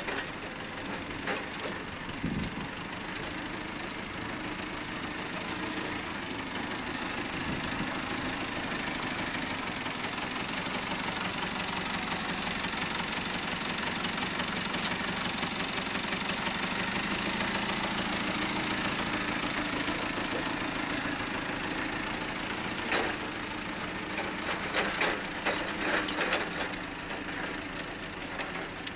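Forklift engine running steadily with a knocking clatter as the truck drives around, louder through the middle and easing off later, with a few sharp knocks near the end.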